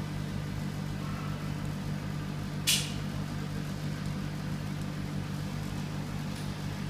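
Laser engraving machine running with a steady low hum from its fans and pumps. A brief sharp hiss cuts in once, a little under three seconds in.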